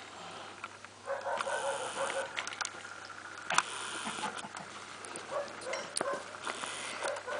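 Central Asian Shepherd puppy whining and whimpering in short runs, with crunching steps in the snow and a few sharp clicks.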